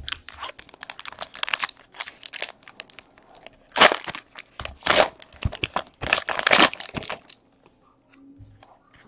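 A trading-card pack wrapper being torn open and crinkled by hand, in a run of irregular crackles that are loudest between about four and seven seconds in.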